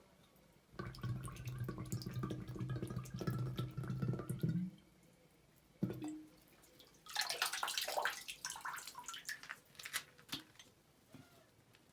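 Spring water poured from a filled container, running steadily for about four seconds. A single knock follows, then a couple of seconds of splashing and dripping.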